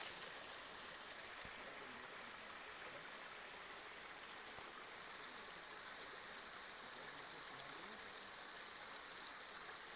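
Shallow rocky creek running over stones and small ledges: a soft, steady rush of water.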